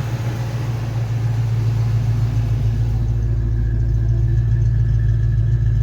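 Fox Body Mustang engine idling smoothly and steadily, a low even hum. The rough, lumpy idle is cured now that carbon rocks holding the EGR valve open have been cleared.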